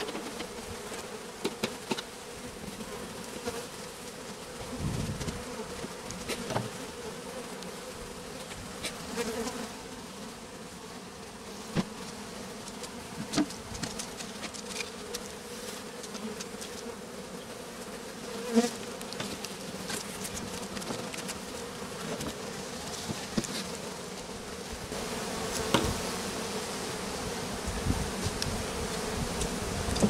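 Honey bees buzzing steadily in large numbers around freshly cut-out comb, a colony disturbed during removal. Scattered sharp knocks and clicks from comb and tools being handled break through the buzz a handful of times.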